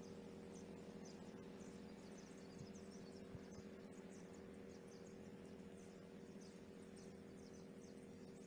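Faint outdoor quiet: small birds chirping rapidly and high-pitched in the background over a steady low hum, with one soft thump about three seconds in.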